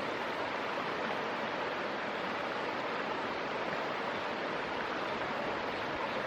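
Small stream running, a steady rush of water.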